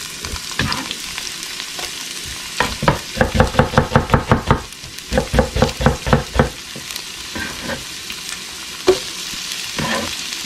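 Chopped onion sizzling in hot oil in a frying pan, a steady hiss. A few seconds in come two runs of quick knocks, several a second, as more onion goes into the pan.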